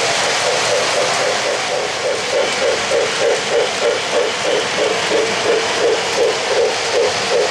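Sound system of an O-gauge model steam locomotive chuffing in a steady rhythm of about three chuffs a second, over a steady hiss, as it runs on three-rail track.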